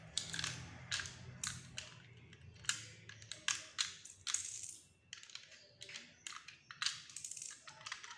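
Irregular sharp clicks and short scraping rattles of plastic Lego bricks being handled and fitted together, with small pieces set down on a tile floor.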